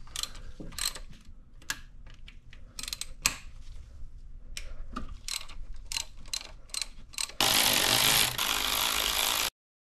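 Socket ratchet clicking in short, uneven strokes as the high-pressure fuel pump's bolts are loosened. About seven seconds in, a cordless power tool runs steadily for about two seconds and then stops abruptly.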